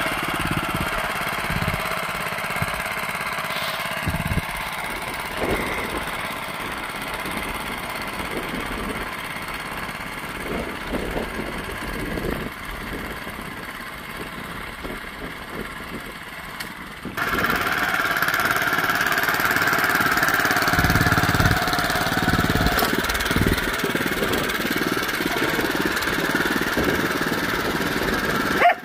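Honda FJ500 DLX tiller's four-stroke petrol engine running steadily as the tiller works soil with spring tines. It is quieter and more distant at first, and louder and closer from a little after halfway.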